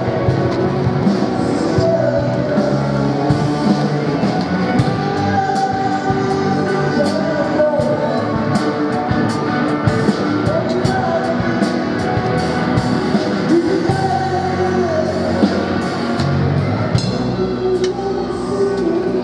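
Live rock band playing amplified: electric guitar and drum kit under a sung lead vocal, with steady drum and cymbal hits.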